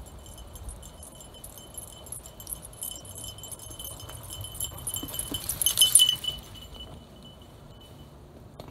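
A small bell jingling steadily on the passing mountain bike and dog, growing louder as they approach, loudest as they go by about six seconds in, then fading away.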